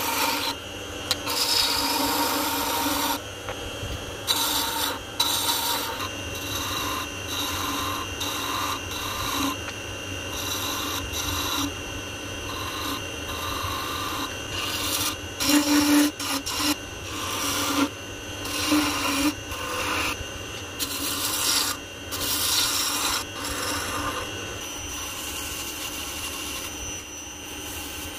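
Ebony spinning on a wood lathe while a turning gouge takes repeated short cuts: a scraping rasp that comes in bursts over the lathe's steady running whine. Near the end the cutting gives way to a quieter, even rubbing of sandpaper held against the spinning wood.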